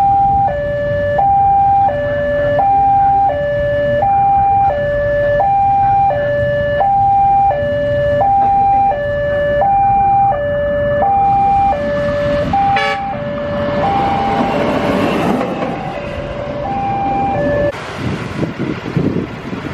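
Railway level-crossing warning alarm sounding a loud two-tone signal that alternates evenly between a higher and a lower tone, changing about every 0.7 s, and stopping about 18 s in. From about 13 s a rushing noise builds beneath it, loudest about 15 s in.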